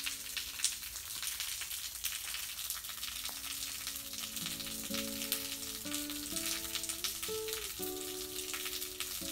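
Soft background music of slow, held notes that step from one pitch to the next, over a steady crackling hiss.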